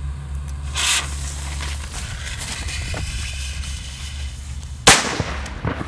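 A Weco cubic Kanonenschlag (cube-shaped salute banger) going off. Its fuse flares with a short hiss about a second in, and just under five seconds in the banger goes off with a single loud, dull bang.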